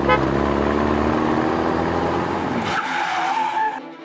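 Dubbed truck engine sound effect running, its pitch slowly falling, after a quick double horn beep at the start. Near the end comes a wavering, squeal-like tone.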